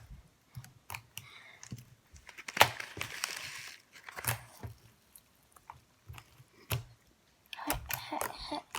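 Foam beads being poured into slime and worked by hand: scattered small crackles and clicks, with a short stretch of dense rustling about three seconds in.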